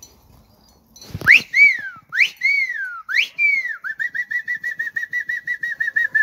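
A person whistling: three swoops that shoot up and glide down, about a second apart, then a fast steady warbling trill on one note for over two seconds.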